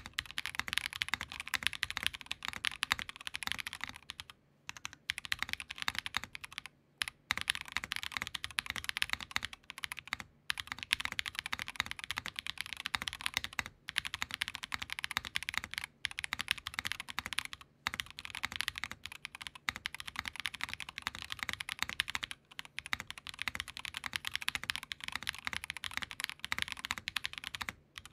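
Fast touch-typing on a KBDFans Tofu60 2.0 60% mechanical keyboard built top-mount with an aluminium plate, plate foam only and lubed Built by Nim linear switches: a steady stream of key clacks with short pauses every few seconds. The sound is crisp and clean, not hollow and without ping.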